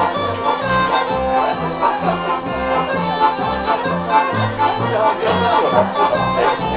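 Górale folk band music: a koza (Polish Highland bagpipe) plays a reedy melody over a steady drone, while a double bass beats out low notes about twice a second.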